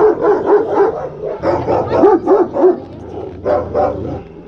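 Alabai (Central Asian Shepherd Dog) barking at a wolf through an enclosure fence: a quick run of deep barks, about three a second, that thins out in the last second or so.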